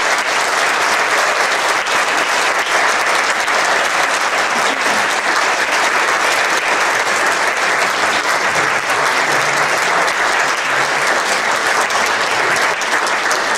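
Theatre audience and cast applauding: dense, steady clapping at an even level.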